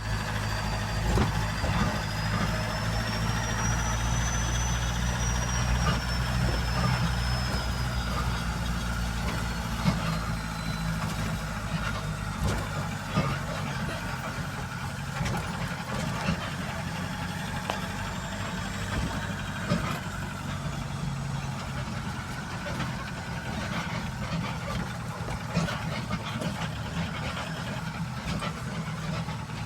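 A motor engine running steadily at idle, a low hum that drops in strength about twelve seconds in, with scattered light clicks and knocks.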